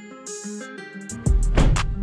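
Background music led by plucked guitar, with a deep bass beat coming in just over a second in.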